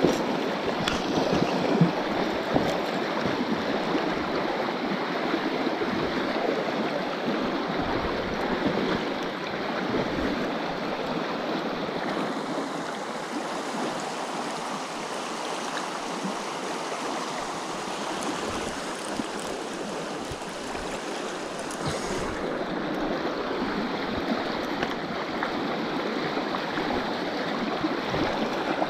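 Steady rushing of a river rapid's whitewater, with a few soft low thumps underneath.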